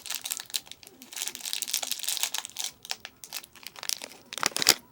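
Plastic snack packaging crinkling as it is handled, the peanut packet being worked open, with irregular crackles and a loud cluster of sharp crackles near the end.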